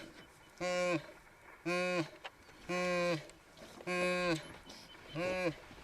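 A repeated animal-like call: five short, identical, flat-pitched calls of about half a second each, coming about once a second.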